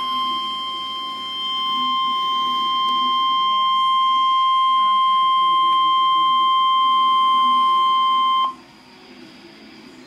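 NOAA Weather Radio warning alarm tone, a single steady electronic tone near 1 kHz, cutting off sharply about eight and a half seconds in and leaving faint hiss. It is the alert that heralds a warning broadcast, here a tornado emergency.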